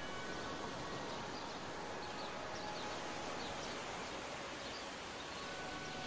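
Ocean surf washing steadily in shallow water, an even rushing wash. Faint held tones and a few faint, short high chirps sit on top of it.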